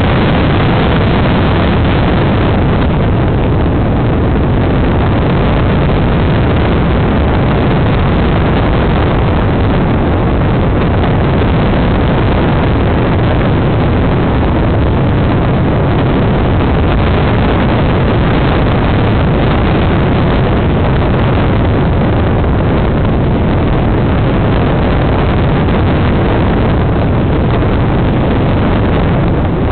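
Loud, steady rush of wind and motor noise on a camera mounted on an aircraft in flight, with a heavy low rumble and no clear engine pitch.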